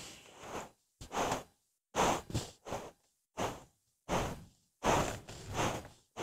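Breathy puffs and quick in-breaths of people blowing up latex balloons by mouth, one a long bumpy balloon and one a round one: about half a dozen short breaths with brief silent gaps between them.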